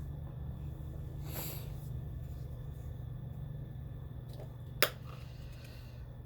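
A short nasal sniff about a second and a half in, over a steady low hum, then a single sharp click near the end.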